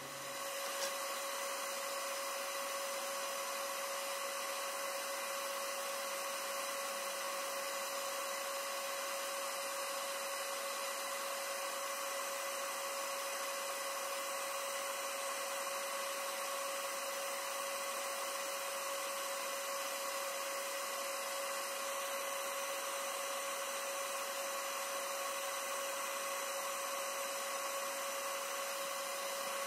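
Small high-speed electric motor running steadily: a constant whine over a hiss, starting abruptly and holding one speed throughout.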